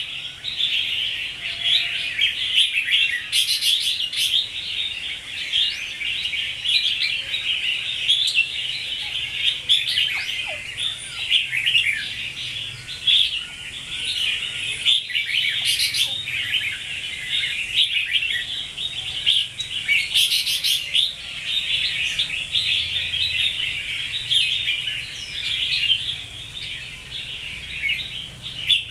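Red-whiskered bulbuls chirping and singing in a quick, busy chatter without pause, with a few sharper high notes now and then.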